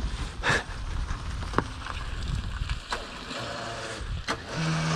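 Modified Dacia 1310 rolling over a gravel dirt track with its engine running weakly and faltering, which is taken for the engine not getting fuel. Several sharp knocks come from the car's loose bodywork, and wind blows on the microphone.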